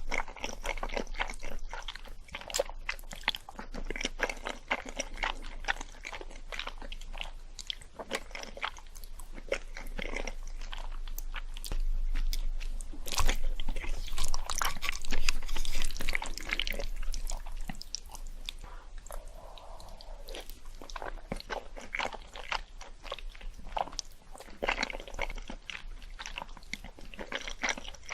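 Someone crunching and chewing Korean sweets: crisp bites and crackles, densest and loudest about halfway through.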